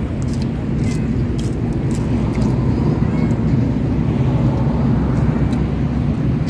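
Steady low engine rumble, unchanging in level, with faint clicks scattered over it.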